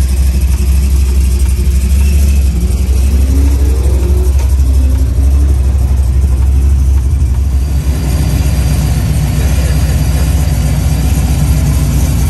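Truck engines running at idle, with one revving up and rising in pitch a few seconds in.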